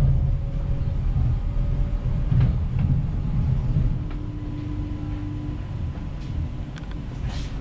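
ÖBB Cityjet (Siemens Desiro ML) electric multiple unit running, a steady low rumble that eases about four seconds in, with a brief steady whine in the middle and a few sharp clicks near the end.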